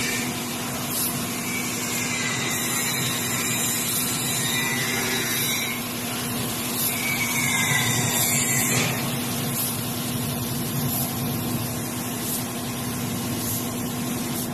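Gravity-feed paint spray gun hissing steadily as it atomises paint onto metal mesh, with the air compressor feeding it running underneath as a steady hum.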